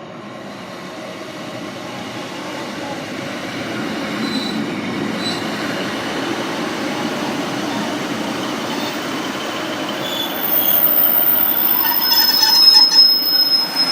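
Class 156 diesel multiple unit arriving at the platform, its rumble growing steadily louder and jumping up about ten seconds in. Near the end, thin high-pitched squeals, typical of brakes and wheels, come in as it slows.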